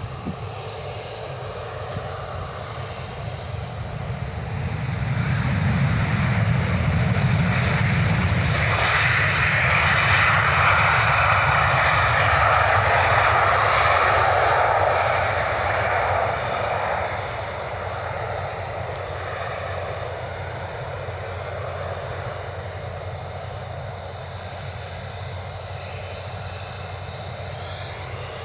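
An aircraft's engines grow louder as a plane passes, loudest about ten to fifteen seconds in, then fade back to a steady distant rumble.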